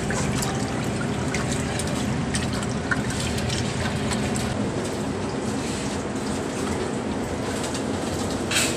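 Water running steadily, with a short, louder hiss near the end.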